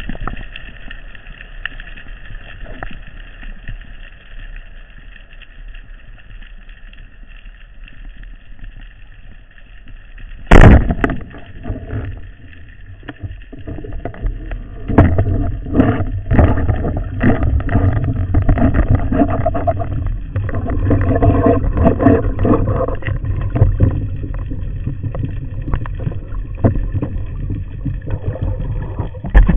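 Underwater, a band-powered speargun fires with one very loud, sharp crack about ten seconds in. Before it there is only a low steady hum and faint water noise; after it come irregular knocks, clicks and churning water noise as the diver handles the gun and swims.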